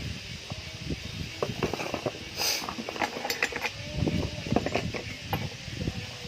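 Handling noise from unpacking power tools: irregular clicks, knocks and rattles with a brief scrape about two and a half seconds in.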